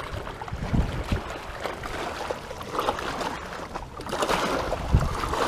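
Wind buffeting an action camera's microphone in uneven low rumbling gusts, with short knocks and rustling from handling as the angler moves over rocks.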